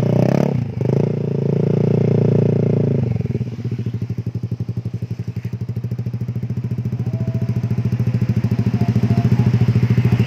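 Yamaha NMAX scooter's single-cylinder engine running through an aftermarket F2Racing exhaust. It is held at high revs for about three seconds, with a brief dip near the start, then drops back to an evenly pulsing idle.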